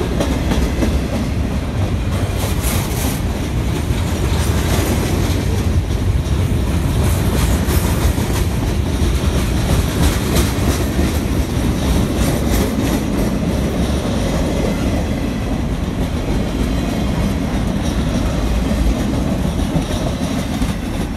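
Freight train cars rolling past close by: a steady, loud rumble of steel wheels on rail, with repeated clacks as the wheels cross rail joints.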